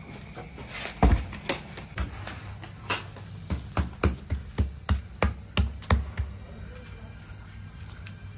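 A large steel pan heaped with flour set down on a concrete floor, landing with one heavy thump about a second in. From about three and a half seconds in comes a quick run of about nine knocks, roughly three a second.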